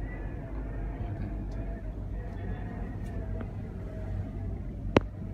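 Steady low rumble of a moving cable car cabin, with one sharp click about five seconds in.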